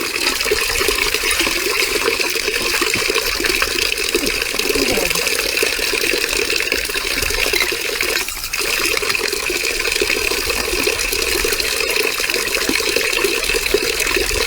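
Water running steadily in a continuous gush, with a brief dip about eight seconds in.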